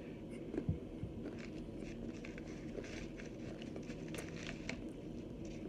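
Crunching and chewing of homemade cornstarch-and-water chunks: many small, sharp crackles in quick succession, with a dull thump about half a second in.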